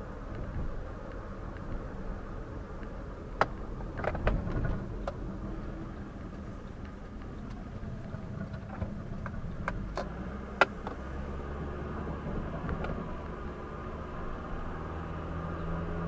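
Car interior noise picked up by a dashcam: a steady engine and road hum, with a few scattered sharp clicks and knocks about four seconds in and again about ten seconds in. A deeper steady engine hum sets in about eleven seconds in.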